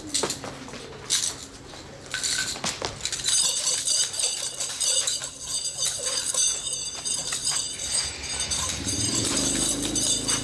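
Metal nunchaku swung and whipped through a form, its chain clinking and rattling: separate sharp clicks at first, then a dense continuous rattle from about three seconds in.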